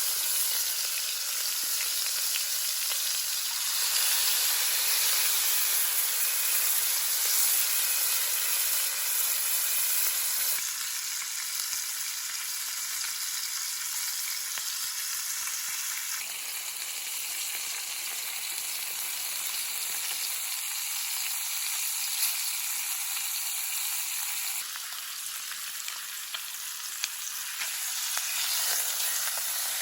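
Ribs frying and sizzling in a hot pan: a steady, dense sizzle that changes abruptly in strength a few times, with a few light clicks in the latter part.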